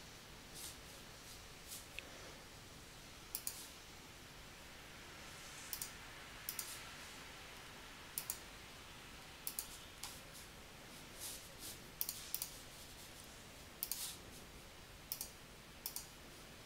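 Faint computer mouse clicks, sparse and irregular, every second or two, many in quick press-and-release pairs, over a light hiss. They are the clicks of placing points with Illustrator's pen tool while tracing a drawing.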